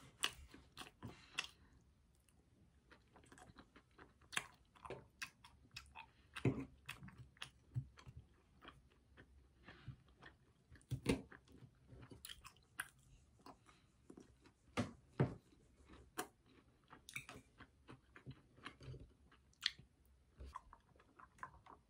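Close-miked chewing of pan-fried hotteok with vanilla ice cream: quiet mouth sounds, with short, irregular clicks throughout.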